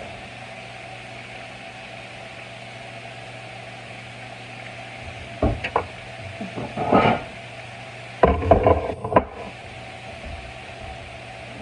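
Steady hum of a running kitchen appliance, with clusters of knocks and clatter from kitchenware being handled about five, seven and eight to nine seconds in.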